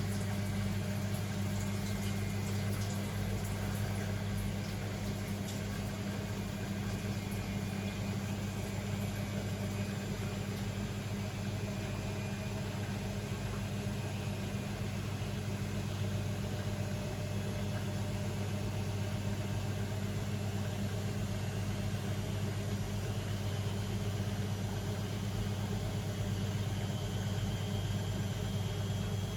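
Beko WML 71433 NP washing machine running with a steady low hum, and a faint high whine that rises slightly near the end.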